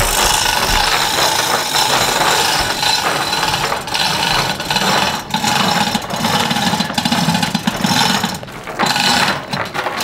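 One-ton manual chain hoist being hand-pulled to lift a heavy load: the hand chain rattles through the hoist with continuous clattering and clicking.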